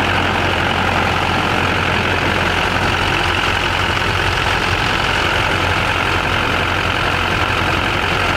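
LB7 Duramax 6.6 L V8 turbo-diesel idling steadily on newly replaced fuel injectors. It runs evenly and sounds normal, with nothing funny in it.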